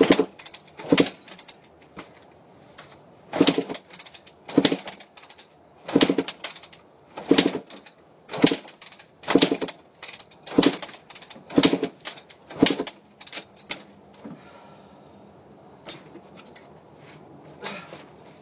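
A 2000 Kawasaki 250 cc dirt bike being kick-started over and over, about one kick a second for a dozen strokes. The engine turns over each time but never fires, and the kicks get weaker and stop near the end. The owner thinks it is not getting fuel.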